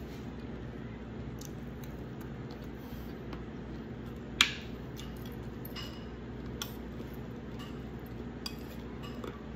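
Metal spoon clinking and scraping against a plate while scooping food, with one sharp clink about four and a half seconds in and a few lighter ones after, over a steady low hum.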